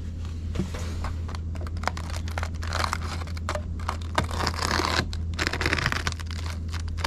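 Crinkling, rustling and scraping as insulation material is handled and worked into place between ceiling rafters, with scattered small clicks. A steady low hum runs underneath.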